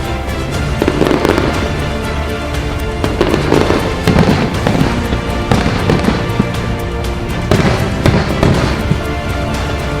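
Aerial fireworks bursting, a string of sharp bangs coming every second or so, mostly after about three seconds in, over music playing steadily.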